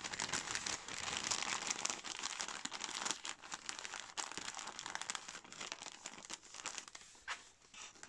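Kraft paper bag crinkling and crackling as it is folded over and pressed flat by hand. The crackle is densest over the first half and thins out toward the end.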